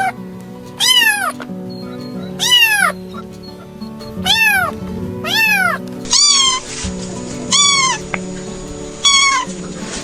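Domestic cat meowing about seven times, each meow about half a second long and rising then falling in pitch, spaced a second or two apart. Soft background music with sustained notes plays underneath.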